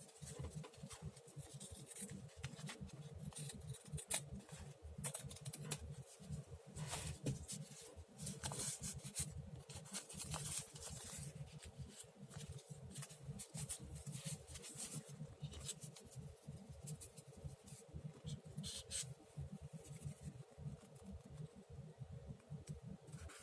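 Scissors snipping through paper in short irregular cuts, with paper rustling as it is turned and handled.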